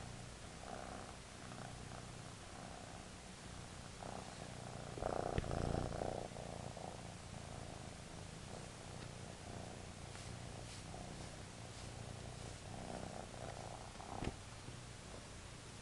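Domestic kitten purring steadily while being stroked. A brief louder rustle comes about five seconds in, and a sharp click near the end.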